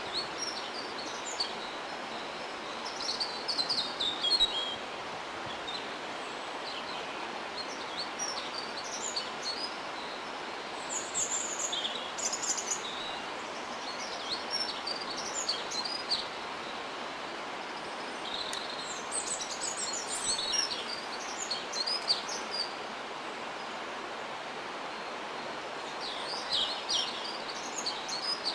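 Small songbirds singing in short twittering phrases every few seconds over a steady background hiss.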